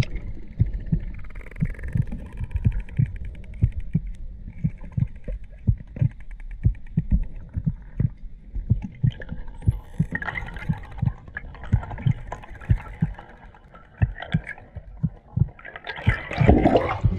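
Muffled underwater camera audio: irregular low thumps of water moving against the camera housing as the swimmer kicks, about two or three a second, with a louder rush of water near the end.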